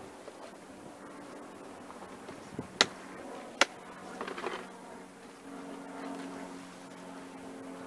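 Two sharp clicks, under a second apart, then a few softer knocks. A low steady engine hum comes in about halfway through.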